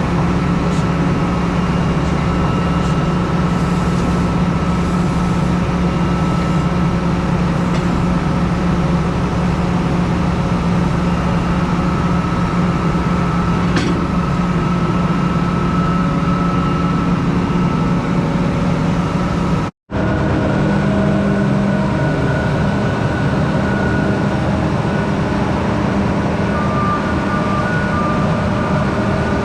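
Heavy vehicle engine running steadily at a constant speed. About 20 seconds in the sound cuts out for an instant, then the hum resumes with a slightly different pitch.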